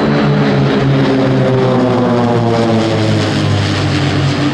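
A formation of nine Pilatus PC-7 turboprop trainers flying overhead, their Pratt & Whitney PT6A turboprops and propellers making a loud, steady drone whose pitch drifts slowly as they pass.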